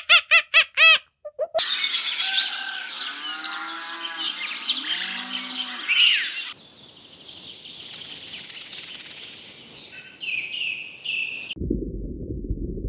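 A run of spliced animal recordings. Rapid repeated calls come first, then a dense chorus of bird calls with cattle mooing low beneath it. After that there is a high steady hiss, a few short calls, and a low rumbling noise near the end.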